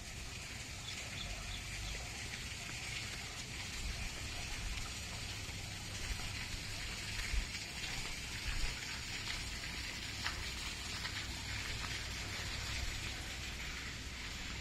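Water pattering and splashing steadily, with scattered small drips and splashes.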